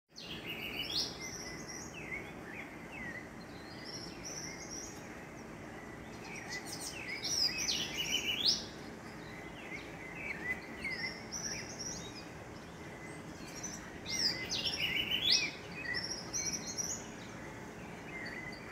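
Several birds chirping and calling in bursts of short high notes and trills, over a steady background hiss.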